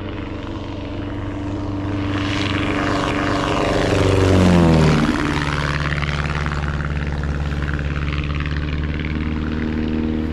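Piper Pacer's 180 hp Lycoming O-360 engine and propeller running as the plane moves past close by. The engine note grows louder, drops in pitch about five seconds in as the plane goes past, then carries on steady.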